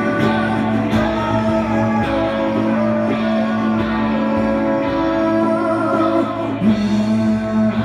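Live band music: a strummed acoustic guitar and a second guitar under a man singing, with long held notes.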